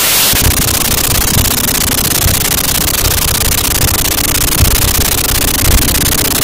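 Car driving, picked up inside the cabin by a dash cam microphone: a loud, steady hiss of road noise with an uneven low rumble underneath.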